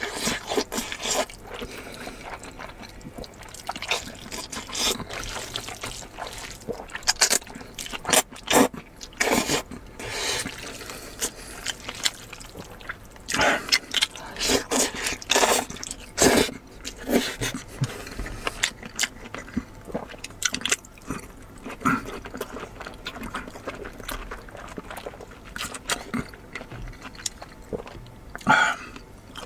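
Close-miked eating sounds: wet chewing, smacking and lip sounds in an irregular run of short clicks and squelches.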